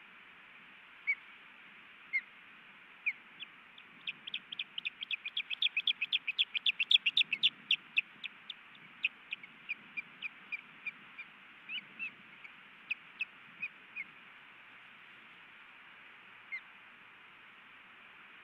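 Osprey calling: a series of short, high whistled chirps. A few come singly at first, then a fast run of about five a second near the middle, slowing again to scattered chirps toward the end.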